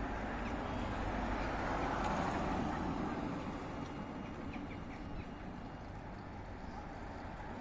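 Street traffic: a vehicle's passing noise swells to a peak about two seconds in and fades, over a steady traffic hum, with a few faint bird chirps.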